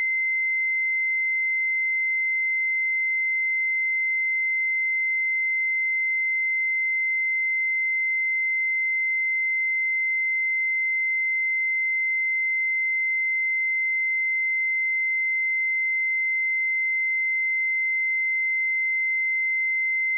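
A steady 2072 Hz sine-wave test tone: one pure, high-pitched tone held at constant pitch and level.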